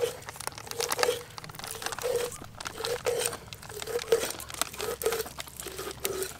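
Knife scoring a large whole fish, crunching through its scales and skin in repeated strokes about twice a second.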